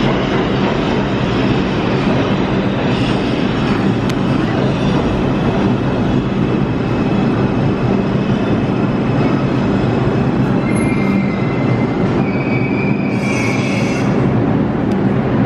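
New York City subway train running loud and steady through the station, with the wheels squealing on the rails for a few seconds near the end.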